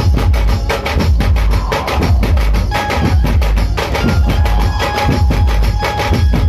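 Dhumal band drums, double-headed barrel drums beaten with sticks, playing a fast, loud rhythm with heavy bass. A few held higher notes sound above the drumming in the middle.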